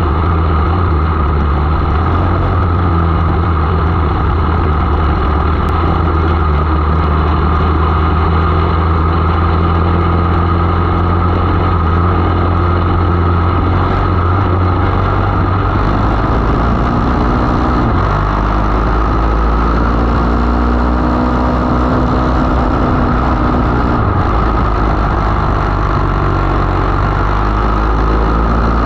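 500 mini sprint's engine running hard at racing speed, heard onboard over a heavy low rumble; steady at first, then from about halfway its pitch rises and falls in repeated sweeps as the car comes off and back on the throttle through the turns.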